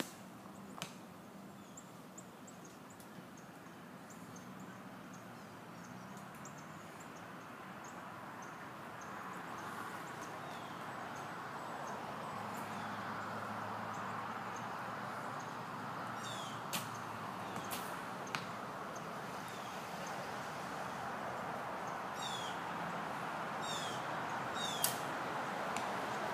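Arrows being shot on an archery range, with a handful of sharp knocks of arrows striking: two near the start, a cluster in the middle and one near the end. Underneath is a steady outdoor noise that slowly grows louder, with a few faint high descending chirps in the second half.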